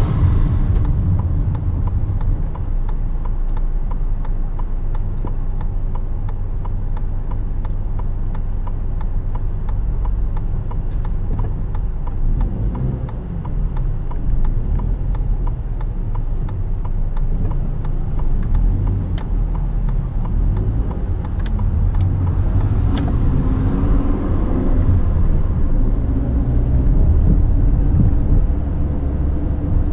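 Car cabin noise while driving: steady engine and tyre rumble, with faint regular ticking through much of it.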